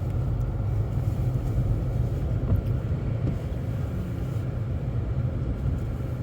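Steady low rumble of a moving car heard from inside the cabin: engine and tyres on the road.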